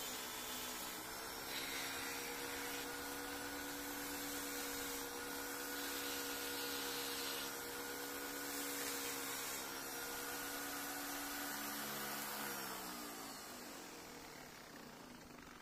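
Electric power-tool motor running steadily, then switched off about twelve seconds in and spinning down, its hum falling in pitch and fading.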